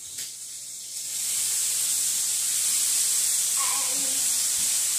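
Food sizzling in a hot frying pan, the sizzle swelling loud about a second in and then holding steady.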